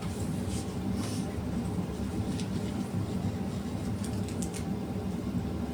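Steady low background rumble, with a few faint, short rustles or taps scattered through it while a Bible verse is being looked up.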